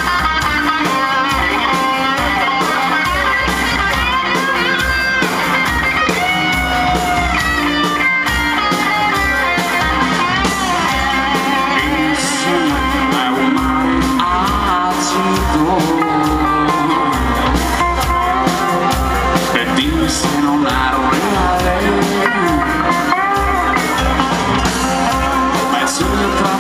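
Live rock band playing loud: electric guitars over bass and drums, with a steady low-end beat.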